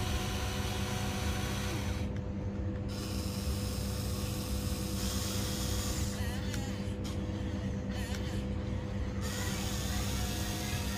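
Huina 1594 RC excavator's small electric motors and gearboxes whirring as the boom, arm and bucket are worked, over a steady low hum.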